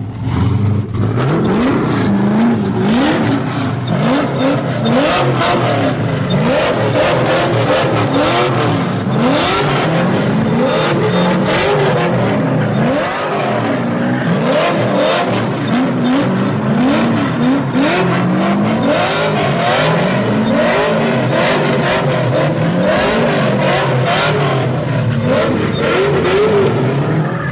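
LS3 V8 in a drift-built Nissan 240SX S13 revving up and down over and over, about once a second, while the car does donuts, with the rear tires spinning and squealing over the engine.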